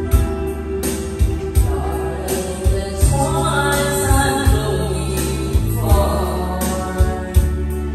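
A girl singing into a karaoke microphone over a karaoke backing track with a steady bass beat.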